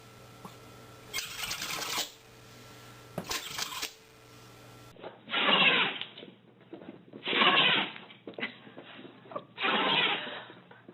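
A pet sneezing repeatedly: two sneezes in the first half, then three louder ones about two seconds apart.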